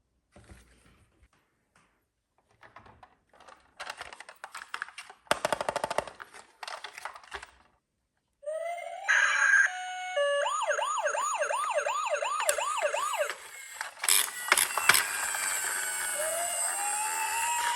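Scattered faint clicks and short bursts of rapid rattling, then emergency-vehicle siren sounds. First a fast yelp rises and falls about three times a second, then a couple of sharp bangs, then a slow wail that rises and falls.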